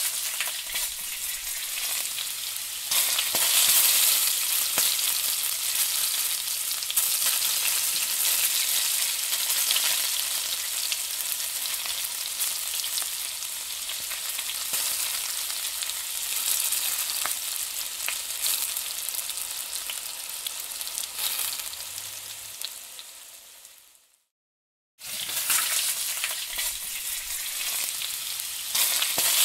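Food frying and sizzling in hot oil in a metal kadai, with a metal spatula stirring through it. The sizzle grows louder about three seconds in and slowly eases off. It cuts out for about a second near the end, then starts again.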